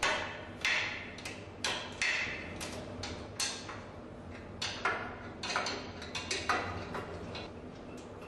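An irregular series of sharp ticks and clicks, sometimes several a second, over a faint low hum.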